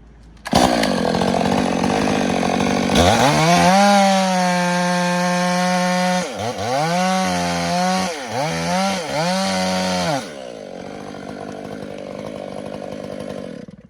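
Stihl two-stroke chainsaw cutting through a hemlock windfall log that is under heavy pressure. The engine climbs to a steady high pitch, dips and picks back up three times, then drops to a quieter rasp that stops abruptly near the end.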